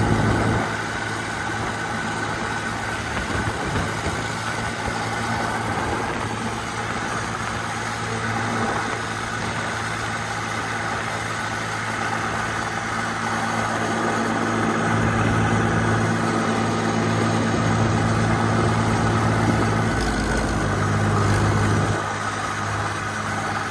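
A Massey Ferguson 135 tractor's Perkins diesel engine runs steadily as the tractor drives along a road. It grows somewhat louder for a stretch in the second half and eases off near the end.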